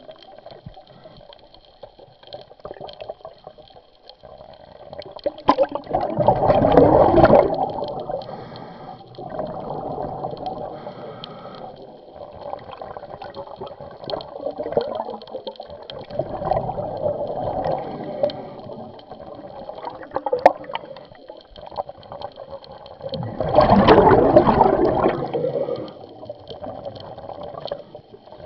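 Underwater bubbling from a scuba diver's exhaled air through the regulator: two loud gushes of bubbles, a few seconds in and again near the end, with quieter gurgling between them.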